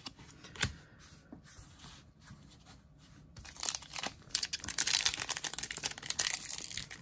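Foil trading-card booster pack being crinkled and torn open by hand, a dense crackling rustle through the second half. Before it, a couple of soft clicks from cards being handled.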